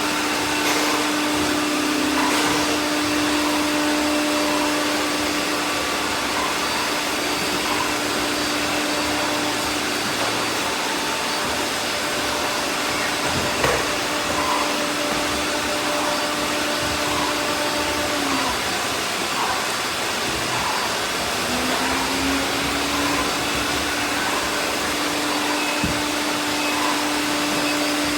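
Many robot vacuums running at once: a steady whirring hiss of suction fans and brushes with several steady motor hums layered over it. One hum fades out about two-thirds through and returns a few seconds later, and a single sharp knock sounds about halfway.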